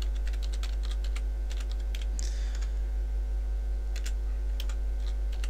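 Typing on a computer keyboard: a run of irregular key clicks with short pauses, over a steady low hum.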